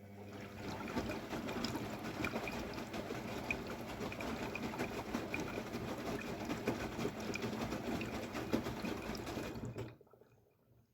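Water rushing into the AEG Lavamat W 1450 washing machine through its inlet valve, a steady rush with a low hum, cutting off suddenly near the end as the fill stops.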